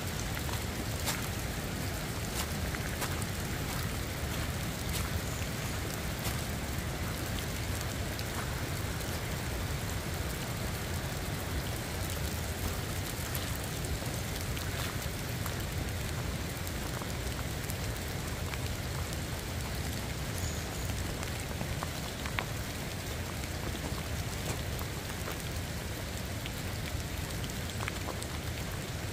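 Steady rain falling, with scattered sharp ticks of individual drops and a low rumble underneath.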